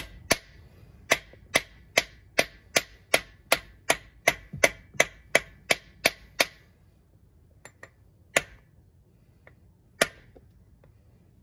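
Ratchet tie-down strap being cranked tight: sharp metallic clicks, about two and a half a second, for some six seconds, then a few spaced single clicks.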